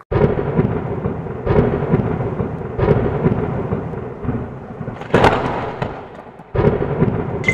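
Thunderstorm sound effect: rolling thunder with about five claps over a steady rain hiss, the loudest a sharp crack about five seconds in.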